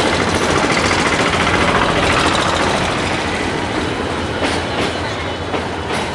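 Bangladesh Railway passenger train's coaches rolling past, a steady rumble and rattle of wheels on the track, with a few sharp clacks in the second half.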